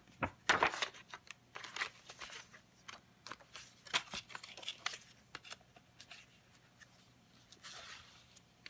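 Paper pages of a CD booklet being handled and turned, rustling in short irregular bursts with a few light clicks.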